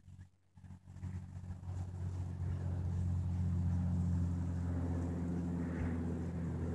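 An engine running at a steady, unchanging pitch, growing louder over the first two seconds or so and then holding level.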